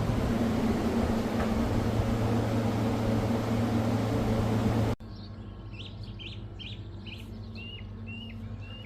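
A car running on the road, with a steady low engine hum and road noise. It cuts off sharply about five seconds in, and a bird then gives a run of about seven short, high chirps.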